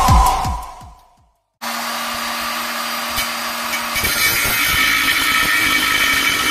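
Electronic intro music fades out in the first second. After a short gap, an angle grinder with a thin cut-off disc runs steadily, and about four seconds in its sound turns rougher and brighter as the disc cuts through a six-cylinder engine's sump.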